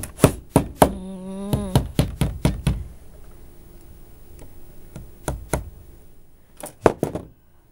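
Claw hammer tapping a small pin nail into a thin wooden spar held between the fingers. The knocks are light and quick, in three short runs with pauses between them.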